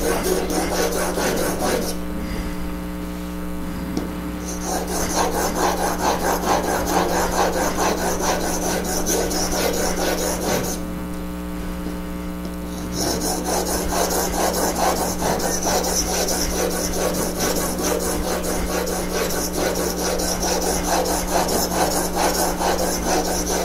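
A steel chisel rubbed back and forth across a sharpening stone, a continuous gritty scraping of quick strokes. It pauses twice, about two seconds in and again around eleven seconds in.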